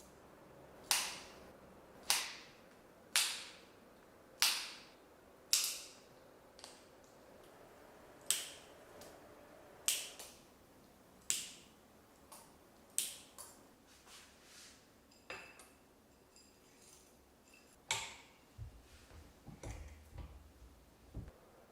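Sharp hard clicks, each with a short ringing tail, about one a second, then quieter and more irregular, with a few low thumps near the end.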